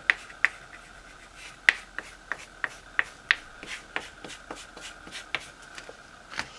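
Foam brush dabbing acrylic paint onto a vinyl stencil over a wooden round: a run of sharp, irregular taps, one to three a second.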